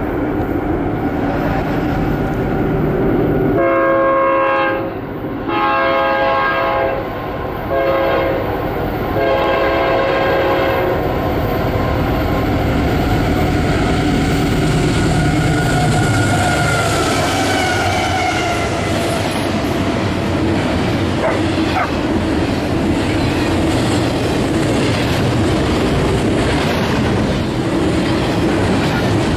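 A CSX intermodal freight led by GE AC4400CW diesel locomotives sounds its air horn in four blasts, long-long-short-long, as it approaches. The locomotives then pass, and double-stack container cars roll by with steady wheel clatter on the rails.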